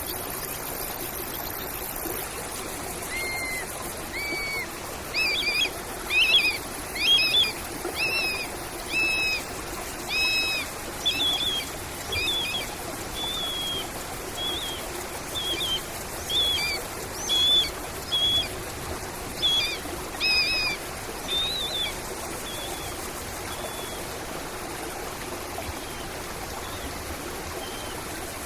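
A bird calling a series of short, clear notes, roughly one a second, from about three seconds in until a few seconds before the end, over the steady sound of a trickling stream.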